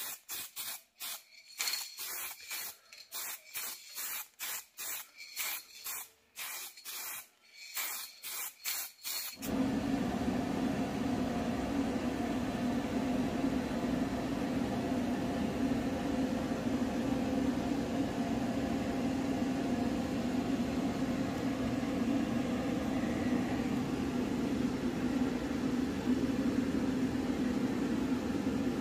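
Aerosol spray can of heat-resistant varnish hissing in short, quick spurts, about two a second, onto a bare steel exhaust pipe. About a third of the way in the spurts stop, and a steady, louder low hum takes over.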